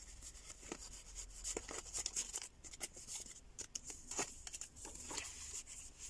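Paper rustling with small irregular taps and crinkles as a handful of small paper ephemera pieces are shuffled and slid into a small paper envelope.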